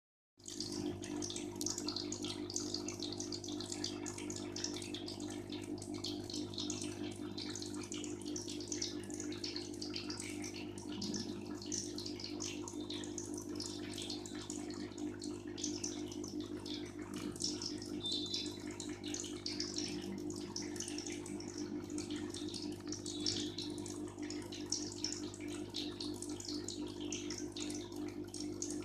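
Aquarium filter or air pump running: water steadily trickling and bubbling over a constant low electric hum.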